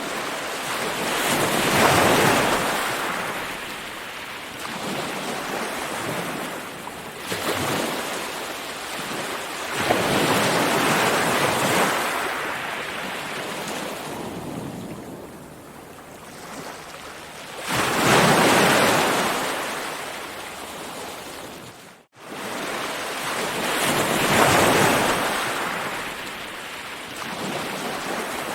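Ocean surf: waves breaking and washing in, each swelling to a peak and fading over several seconds, with about five surges. About three-quarters of the way through the sound cuts out for an instant, then resumes.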